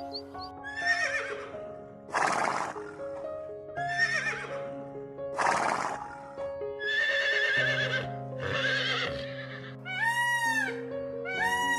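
A series of about eight animal calls, roughly one every second and a half: some wavering, two noisy and harsh, and the last three rising then falling in pitch. Background music with sustained notes plays under them.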